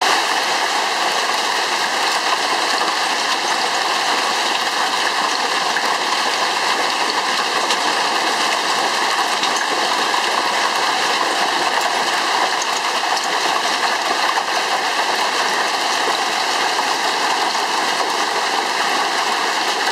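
Heavy hailstorm: hailstones and rain pelting down on a lawn and backyard play equipment, a dense, steady, loud clatter without let-up.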